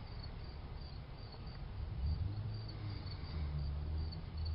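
Crickets chirping in a steady, even rhythm of short chirps over a low, steady rumble.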